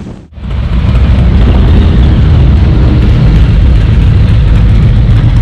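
Harley-Davidson touring motorcycle's V-twin engine idling: a loud, steady low sound that starts just after a brief drop at the very beginning.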